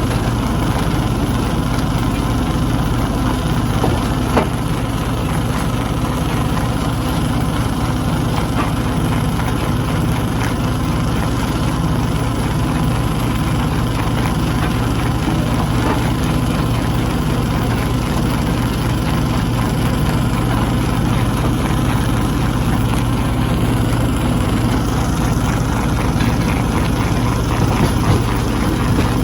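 Stone crushing machine running with a steady, heavy low drone, and a few brief sharp knocks, about four seconds in and again near the end.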